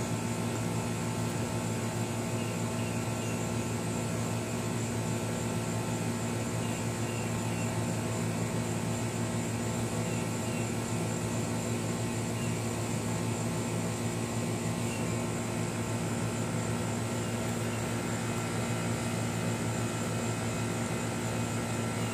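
Steady mechanical hum with several constant tones over a even hiss, not changing in pitch or level.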